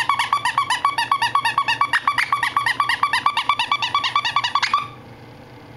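Lhasa-poo puppy yapping in a fast, high-pitched run of about seven yips a second, stopping abruptly near the end.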